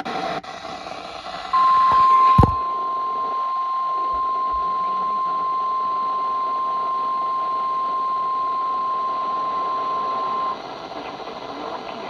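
Weather-radio emergency alert tone: one steady high beep, the single-tone 1050 Hz warning alarm, held for about nine seconds over radio hiss. It starts about a second and a half in, with a thump a second later. The tone signals that a warning is about to be broadcast.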